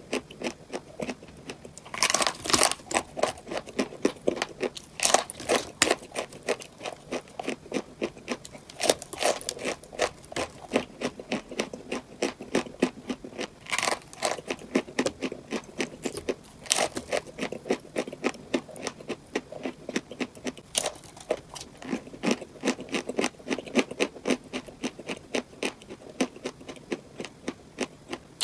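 Close-miked chewing of crunchy-filled cupcakes: a steady run of crisp crunches, several a second, with louder bites every few seconds.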